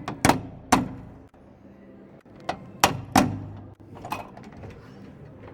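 Sharp metal knocks on the push bar door latch hardware: two quick strikes, a pause of well over a second, then four more, each with a brief ring.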